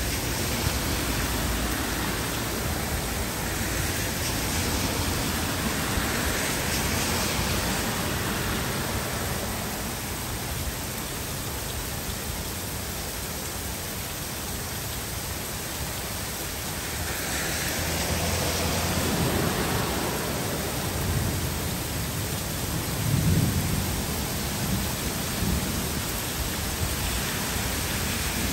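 Heavy rain falling steadily, its hiss swelling twice. In the second half a low rumble of thunder rolls in, loudest about two-thirds of the way through.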